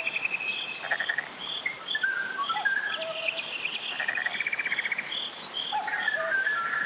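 Birds singing: short whistled notes, chirps and rapid trills, in a pattern that repeats about every eight seconds, over the steady rush of a valley stream.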